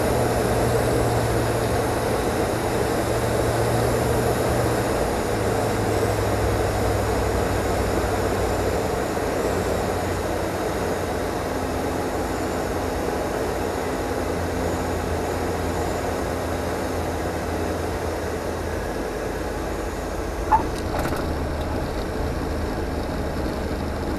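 The CSA PS28 Cruiser's Rotax 912 engine and propeller running at low power, heard inside the cockpit during landing and rollout; the engine note steps down about five seconds in. A brief sharp click comes near the end.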